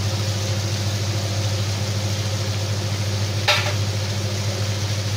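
Spinach and chickpeas sizzling steadily in a hot frying pan over a constant low hum, with one sharp click about three and a half seconds in.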